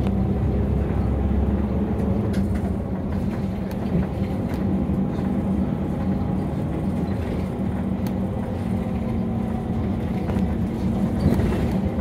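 Nissan Diesel Space Runner RA (ADG-RA273MAN) city bus's diesel engine and drivetrain running under way, heard from inside the passenger cabin as a steady drone with a low hum. The engine note eases off a few seconds in and picks up again about halfway through, with a few faint rattles from the cabin.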